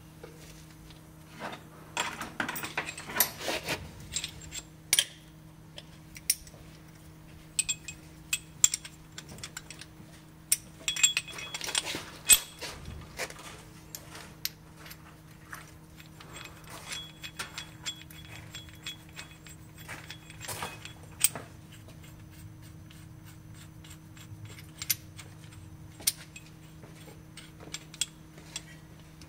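Metal tools and brake parts clinking, tapping and scraping in irregular bursts, a few clinks ringing briefly, over a steady low hum.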